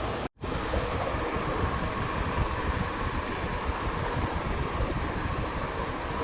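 Candes ceiling fan running at high speed: a steady airy whoosh with a fluttering low rumble. The sound drops out for an instant about a third of a second in, then carries on unchanged.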